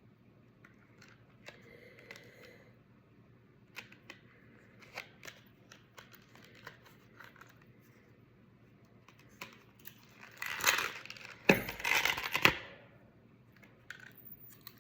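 Unboxing handling noises: scattered small clicks, then about two seconds of loud rustling and crinkling of the packaging, over a low steady background hum.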